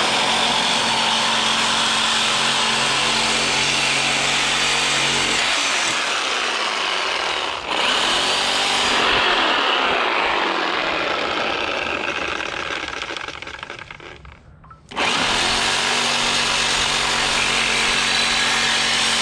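Craftsman reciprocating saw cutting a steel exhaust pipe beside the muffler, its motor running steadily with the blade rasping through the metal. The saw slows and stops about fourteen seconds in, then starts again a second later. The blade is worn and struggles to cut through.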